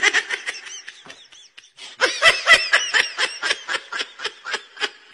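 A person laughing in quick, high-pitched bursts: a short run at the start, a brief lull, then a longer run of about five laughs a second from about two seconds in.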